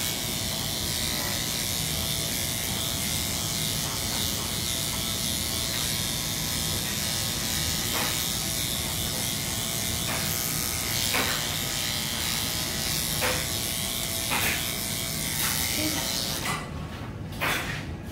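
Electric dog grooming clippers running with a steady buzz, cutting off near the end, followed by a few sharp clicks.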